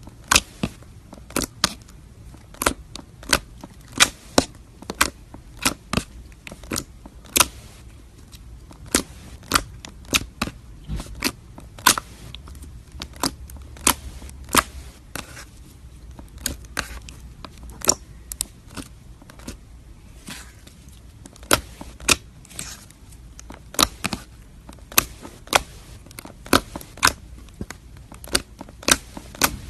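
Slime being squeezed and poked by hand, giving sharp, irregular pops and clicks, one to three a second.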